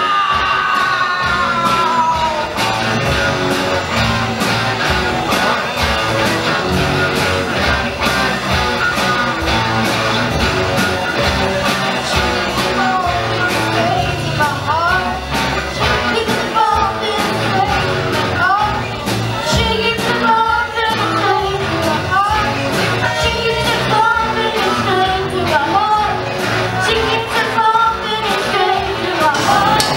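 Live rock band playing: drum kit, electric bass and guitar, with a boy's voice singing lead into a microphone from about halfway through.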